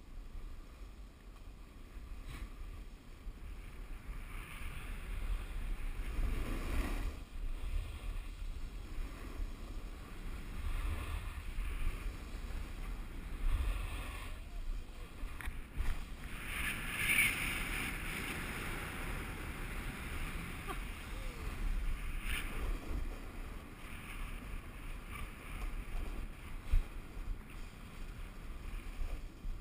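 Wind buffeting an action camera's microphone during a downhill ride on packed snow, with a low rumble and a hissing scrape of edges sliding over the snow that swells and fades from turn to turn.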